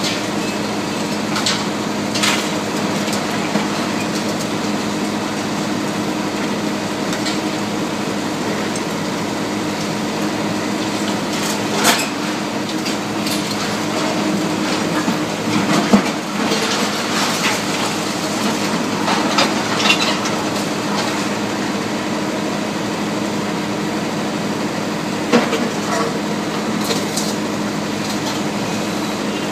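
Hydraulic demolition excavators running with a steady droning hum while their crusher jaws bite into a building's steel frame and concrete, with metallic clattering and crashes of falling debris. The sharpest crashes come about 12 seconds in, about 16 seconds in, and again near 25 seconds.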